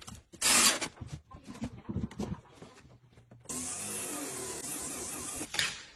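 Steady, even machine noise, like a vacuum or sanding machine running, that starts about halfway through and stops shortly before the end. Before it come a short loud burst and a few faint knocks.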